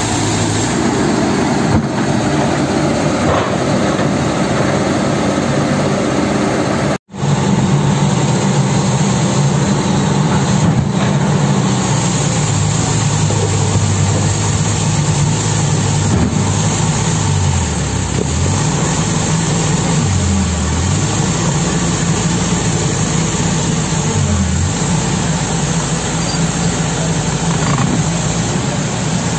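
Kobelco SK200 hydraulic excavator's diesel engine running steadily as the machine works in the mud. Its pitch dips briefly three times in the second half. The sound cuts out for an instant about seven seconds in.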